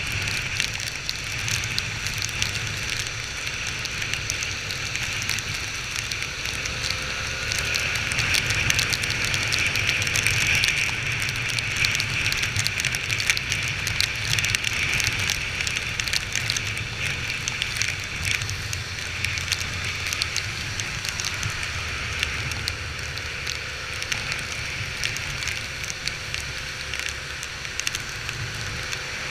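Heavy rain pattering and crackling close to the microphone over the low, steady running of a Honda XR 250 Tornado's single-cylinder engine.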